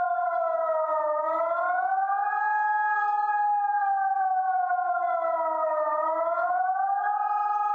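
ECN 600 electronic siren sound played through a pair of horn loudspeakers on a rotating mount: one steady siren tone that sags in pitch and climbs back twice, about five seconds apart.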